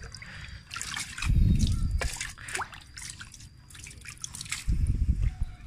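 Water dripping, trickling and sloshing as a hand lifts soaked dried leaves out of a basin of water, with two louder low rumbles, about a second in and near the end.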